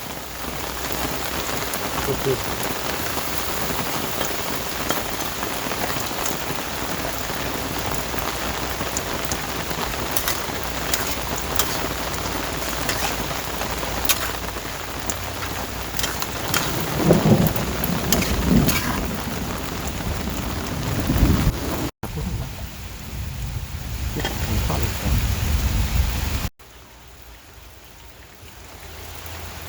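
Heavy rain falling steadily, with rolling thunder rumbling low in the second half; the sound drops away abruptly near the end.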